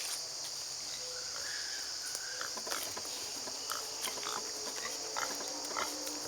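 Steady high-pitched chorus of insects, with scattered faint clicks and rustles.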